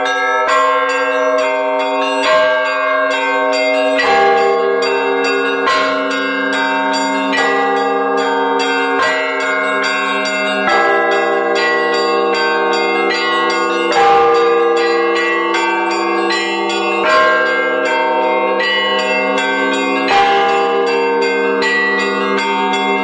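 A set of newly hung church bells, from small bells up to a 660 kg bell, rung together in a peal. The small bells chime in quick succession over overlapping ringing tones, while a deep stroke of the big bell sounds every few seconds.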